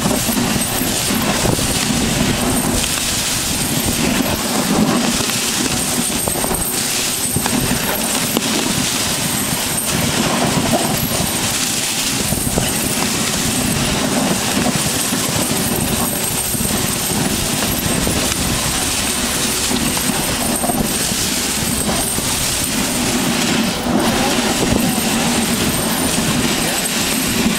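Dog sled running over rough glacier snow and ice: the runners scrape and rattle continuously, and the unsprung sled frame knocks with many small jolts.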